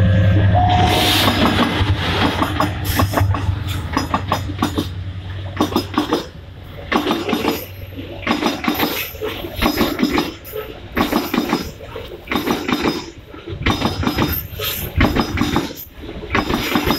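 A diesel-hauled freight train passes close by. The locomotive's engine drones for the first few seconds, then its long line of hopper wagons rolls past with repeated bunches of clacking and clanking from the wheels on the rails, about once a second.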